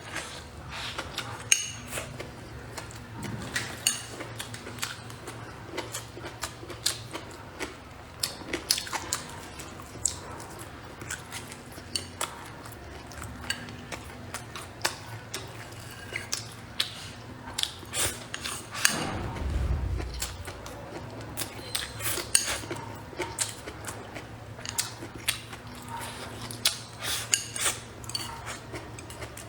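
Eating utensils clicking and clinking against bowls and plates during a meal: many short, sharp clicks at irregular intervals. A low steady hum runs underneath, and a brief low rumble comes about two-thirds of the way through.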